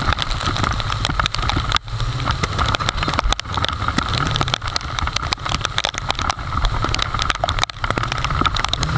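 Heavy rain on a moving motorcycle: rapid, dense tapping of raindrops striking the camera, over steady wind and road noise. The motorcycle's engine runs underneath.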